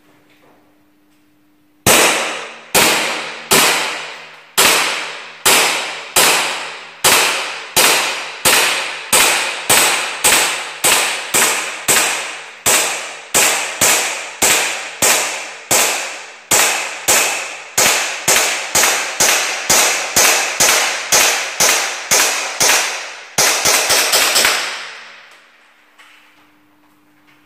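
KJ Works Colt Hi-Capa gas blowback airsoft pistol firing about forty shots in quick succession, each a sharp crack with a short ringing tail. The pace picks up as it goes and ends in a rapid string of shots before the magazine runs dry.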